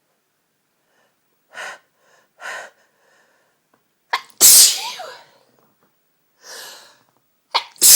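A person sneezing twice, about three seconds apart, during a sneezing fit. Each sneeze is a sharp catch followed by a loud burst, with quieter breaths drawn in before them.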